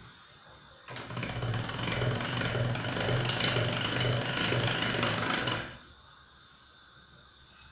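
Hand-cranked metal pasta machine turning, its cutting rollers slicing a sheet of dough into thin rechta noodles: a steady mechanical grinding rattle that starts about a second in and stops after about five seconds.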